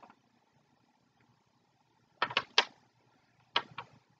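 Packaging being handled: three quick crinkles or clicks about two seconds in, then two more about a second later.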